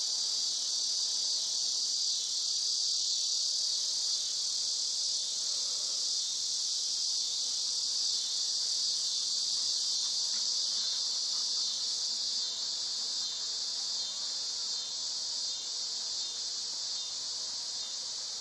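Steady high-pitched insect chorus, with the faint wavering buzz of swarming honeybees flying around.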